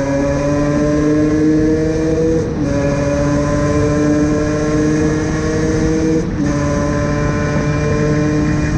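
Suzuki Valenti SM 50 supermoto's 50cc engine pulling under throttle, its pitch climbing slowly in each gear. About two and a half and six seconds in the pitch drops sharply as it shifts up. Wind and road rush run underneath.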